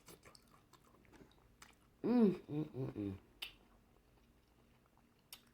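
Close-miked chewing and wet mouth clicks of a person eating a sauced seafood boil, with a short hummed vocal sound of enjoyment about two seconds in.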